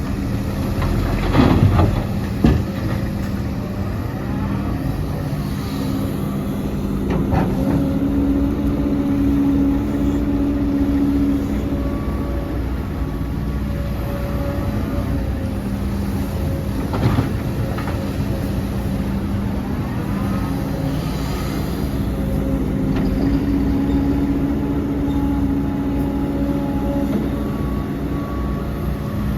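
Diesel hydraulic excavator running steadily and working, its engine swelling under load twice. Sharp metallic knocks a few times, early on and about halfway through.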